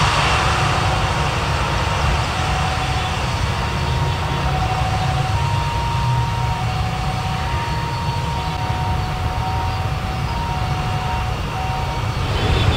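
Jet engines of a Batik Air Airbus A320-family airliner at high power as it rolls away down the runway on its takeoff run: a loud, steady low rumble with a hiss over it and faint whining tones that come and go.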